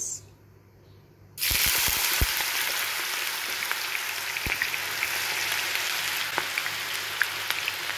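Thin raw-banana slices, soaked in turmeric-salt water and drained, going into hot oil to deep-fry: sizzling starts suddenly about a second and a half in and keeps going steadily, with scattered sharp pops.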